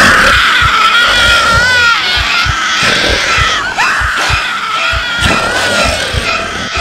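A woman screaming in long, high, wavering shrieks that break briefly twice, over irregular dull thumps.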